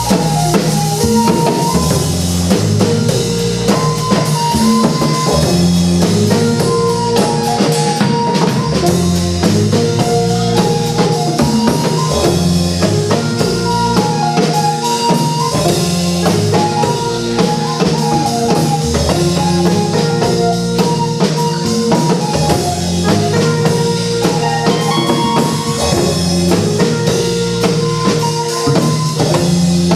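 Music with a drum kit keeping a steady beat, a stepping bass line and a short high melodic figure that repeats every few seconds.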